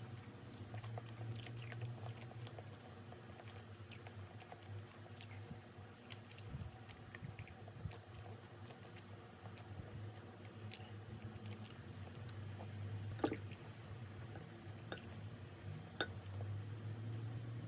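A person eating: chewing, with scattered light clicks and taps over a steady low hum.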